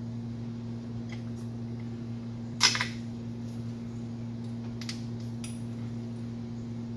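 Light clicks of metal hand tools against the engine, with one sharper metallic click about two and a half seconds in, over a steady low electrical or fan hum.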